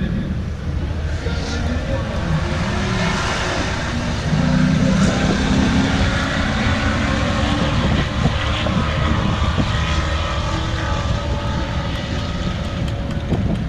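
Vehicle engines running with background voices, a steady mix that gets a little louder about four seconds in.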